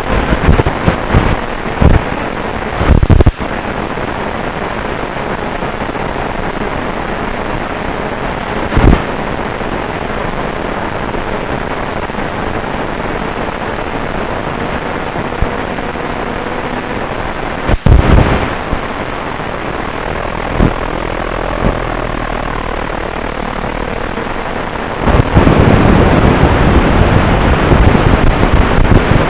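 Steady hiss from an analog FPV video link's audio, broken by a few loud crackles, turning into louder static about 25 seconds in as the video signal breaks up.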